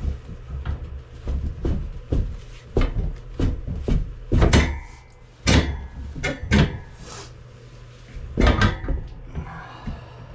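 Irregular knocks, clunks and rattles of a motorcycle wheel rim, tire and tools being handled on a workbench. A few louder clanks ring briefly, around the middle and near the end.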